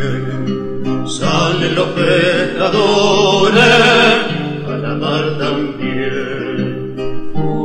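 A song: a male voice singing a long phrase over guitar accompaniment, starting about a second in.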